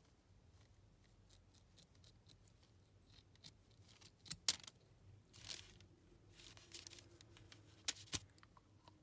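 Scissors cutting through a foam squishy toy: a few faint, separate snips, the sharpest about four and a half and eight seconds in.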